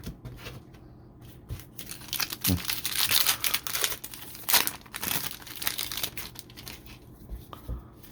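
A 2023 Donruss football card pack wrapper being torn open and crinkled by hand, a dense run of crackling from about two seconds in to about six and a half, loudest near the middle, with a few soft thumps around it.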